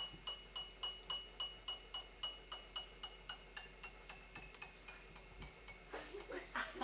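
Glass cup tapped over and over, about four taps a second, each tap giving a short, high, bell-like ring. Water is being added at the same time, and the ring drops a little in pitch toward the end as the glass fills.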